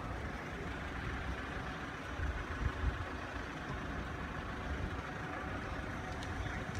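Low steady rumble of vehicle engines idling at a closed level crossing, with a few brief louder low bumps about two to three seconds in.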